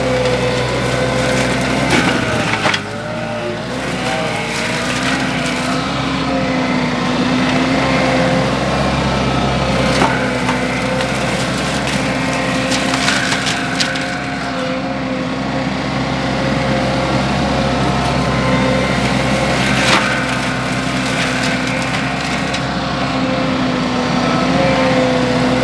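Baumalight MS530M forestry mulcher on a Wacker Neuson SM120 mini skid steer grinding up wood, with splintering cracks and sharp snaps now and then over the machine's steady engine note. The engine pitch sags under load about three seconds in and again near the end.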